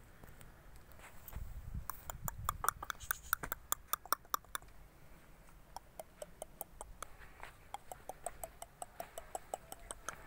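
Footfalls on dry, hard-packed dirt: a run of quick sharp clicks, about four or five a second, starting about two seconds in, then thinning out to scattered clicks, with a low rumble under the first steps.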